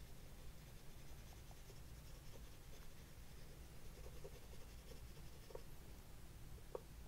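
Oil pastel stick scraping softly across a painted wood panel in short strokes, with a few faint clicks, the clearest near the end.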